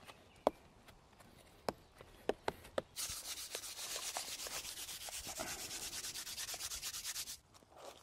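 Several sharp clicks, then a handful of plant matter rubbed hard across a sheet of paper in rapid, even back-and-forth strokes for about four seconds, stopping shortly before the end.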